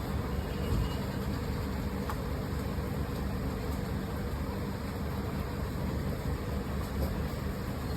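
Steady low rumble of background noise with a faint hum.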